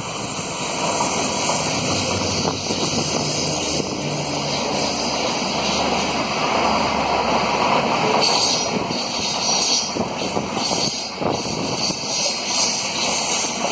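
WDP-4D diesel-electric locomotive's EMD two-stroke engine running under power as it passes, hauling a rake of LHB coaches, followed from about halfway through by the coaches rolling by with the rattle and clicks of wheels on rail.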